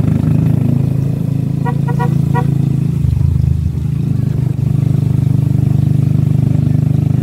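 Motorcycle engine of a tricycle running steadily under way, heard from inside its sidecar. The revs dip briefly about three seconds in, and a few quick horn toots sound about two seconds in.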